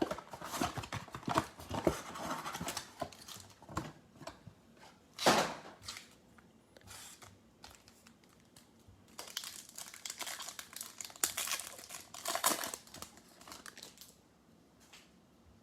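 Plastic packaging crinkling and tearing as a Bowman baseball card mega box and its packs are opened by hand. It comes in bursts, with one loud rip about five seconds in, a quieter stretch, then more crinkling that stops shortly before the end.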